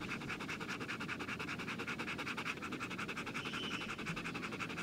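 Dog panting rapidly in a fast, even rhythm.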